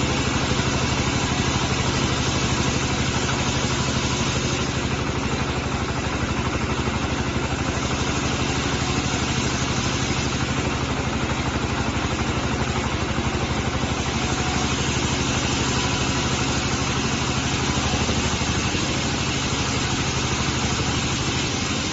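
Diesel engine of a mobile vertical band sawmill running steadily, with a dense mechanical hiss over it that swells twice for a few seconds.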